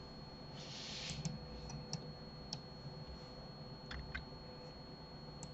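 A few faint, scattered clicks of a computer mouse and keyboard, with a short soft hiss about a second in.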